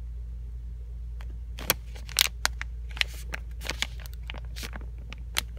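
Crinkles and small clicks of a plastic sweets packet being handled and turned over, an irregular scatter starting about a second and a half in, over a steady low hum.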